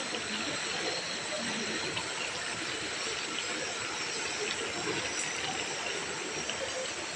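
Beef karahi curry cooking in a steel pot, a steady sizzling hiss.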